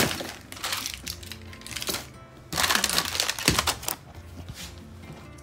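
Plastic packaging rustling and crinkling in several irregular bursts as it is handled, over light background music.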